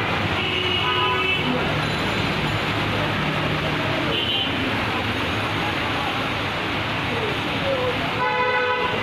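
Busy street traffic noise with vehicle horns honking several times, the loudest and longest blast near the end.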